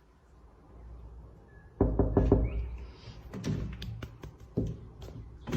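A run of irregular knocks and thumps, starting about two seconds in after a quiet stretch.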